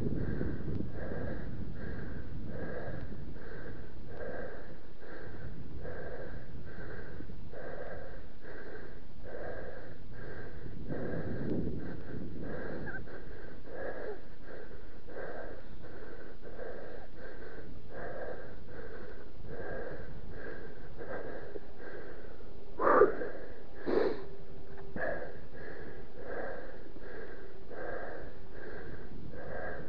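Mountain biker's heavy, rhythmic breathing while riding, in and out about one and a half times a second and steady throughout. A low rumble of tyres on the dirt trail comes near the start and again around a third of the way in. Two sharp knocks about a second apart sound roughly three quarters of the way through.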